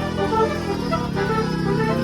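Music: a quick melodic tune of many short notes over a steady low hum.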